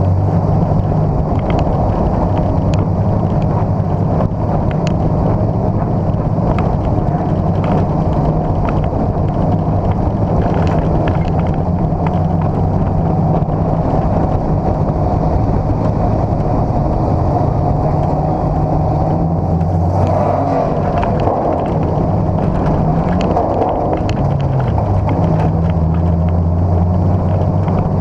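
Dirt-track race car's engine heard from inside the cockpit, running loud and fairly steady; its pitch shifts about twenty seconds in, dipping and climbing again a few seconds later.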